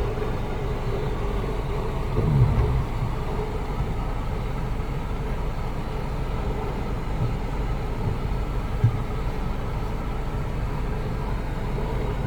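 Steady low rumble of a vehicle running, with a couple of small knocks.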